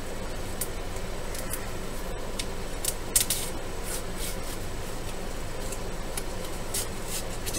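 Paper wrapper crinkling and rustling as it is pulled by hand off a roll of fish paper: scattered short, scratchy crackles, the loudest about three seconds in.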